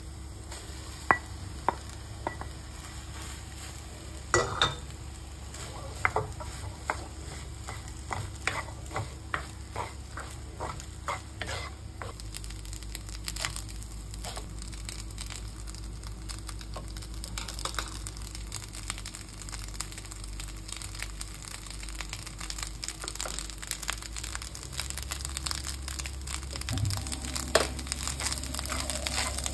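Rice being stir-fried with a wooden spatula in a honeycomb-textured stainless steel pan, the spatula scraping and tapping against the metal over a light sizzle. At first there are scattered sharp taps; after about twelve seconds the stirring becomes a more continuous scraping and sizzling.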